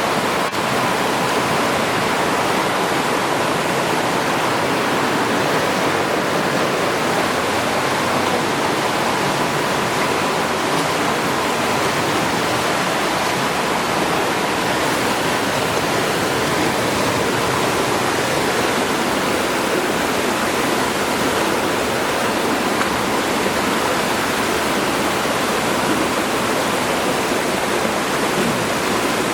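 Waterfall pouring into a creek: a steady, unbroken rush of falling water.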